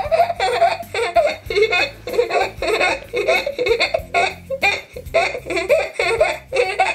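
Girls laughing hard in quick, repeated bursts of giggles.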